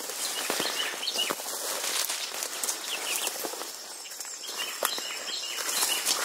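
Footsteps crunching and brush rustling as someone pushes on foot through dry grass and undergrowth, with short high chirps in the background.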